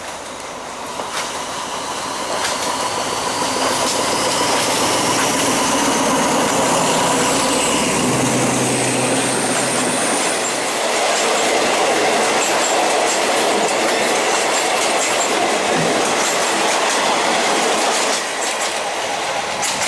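A diesel-hauled passenger train of the State Railway of Thailand passing close alongside on the next track. The locomotive's diesel engine hums low as it goes by. Then a long run of coaches follows with clickety-clack of wheels over rail joints and a rising high wheel squeal. The noise swells about two seconds in and drops away near the end as the last coach passes.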